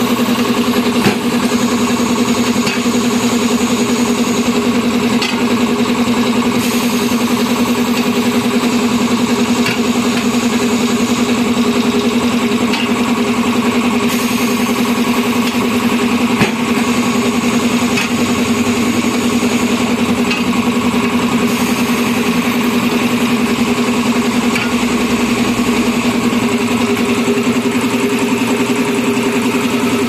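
Shop air compressor running with a steady, even drone. A higher hiss rises several times over it.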